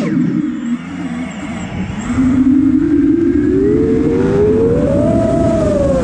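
5-inch FPV quadcopter's brushless motors whining and changing pitch with the throttle. There is a brief sharp rise right at the start, then a lower, eased-off stretch for about two seconds. After that the pitch climbs steadily for about three seconds and dips near the end.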